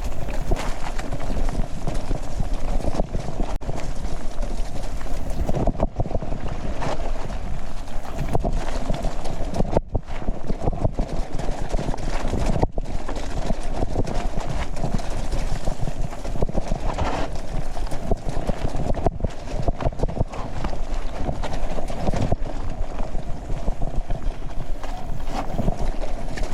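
Mountain bike rattling and clattering over rough ground at speed: many irregular rapid knocks over a steady rush of noise.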